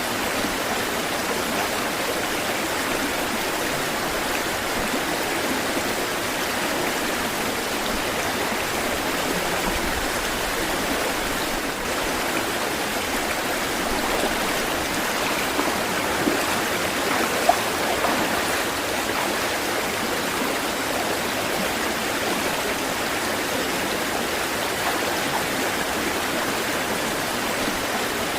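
Running water rushing steadily, with a couple of brief louder splashes a little past the middle.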